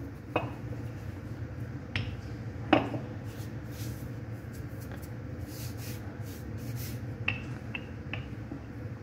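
Wooden rolling pin rolling out bread dough on a floured, plastic-covered table: soft rubbing, with a few sharp clicks and taps as the pin is handled and set down, three close together near the end.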